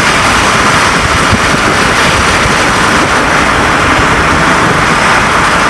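Loud, steady road noise inside a moving vehicle: engine and tyres running at speed without a break.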